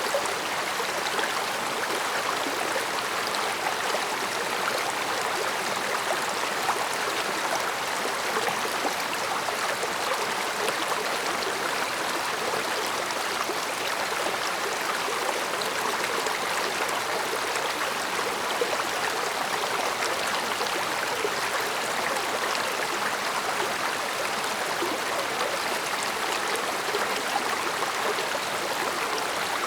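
Small mountain stream flowing steadily over stones, a continuous babbling and gurgling.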